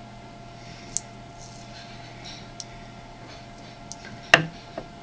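Small handling clicks and taps from batteries and masking tape being worked by hand, with one sharper click about four seconds in, over a faint steady hum.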